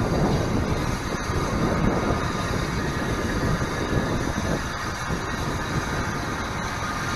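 Austerity 0-6-0 saddle-tank steam locomotive running slowly with its train of coaches, a steady rumbling noise that eases off a little toward the end.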